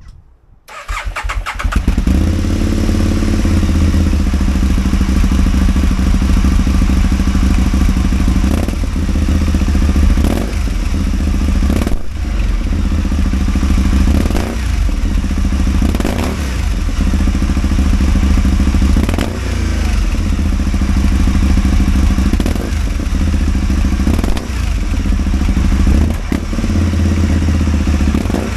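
Aprilia Caponord 1000's V-twin engine cranked and catching under a second in, then running with its revs dipping and recovering every two to three seconds: a misfire.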